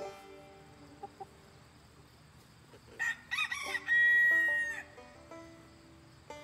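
A rooster crowing once, about three seconds in: a few quick rising-and-falling syllables, then one long held final note. Soft plucked-string background music plays underneath.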